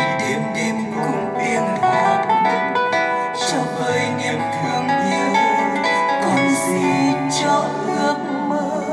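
Music played back on a hi-fi system of a 6P3C valve amplifier and RFT full-range loudspeakers: plucked strings with a singing voice.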